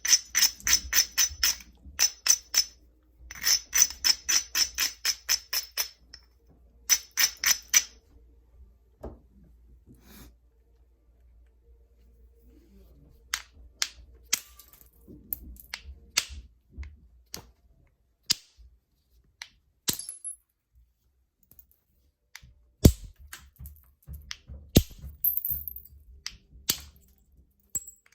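Flintknapping on a novaculite blank: rapid runs of sharp, ringing clicks of tool on stone, about five a second, in bursts during the first several seconds, then scattered single clicks and knocks.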